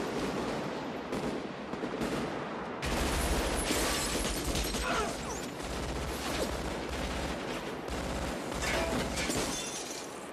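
Sustained automatic assault-rifle fire from several guns, bursts overlapping almost without pause and echoing between tall buildings. It thins out near the end.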